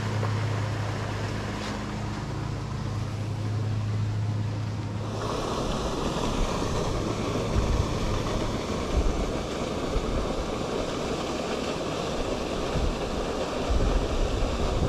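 A steady low hum for about the first five seconds, then, after a sudden change, wind rushing and buffeting against the microphone with irregular low thumps.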